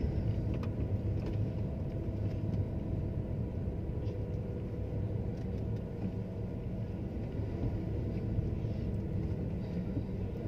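Steady low rumble of a car's engine and tyres heard from inside the cabin while it drives.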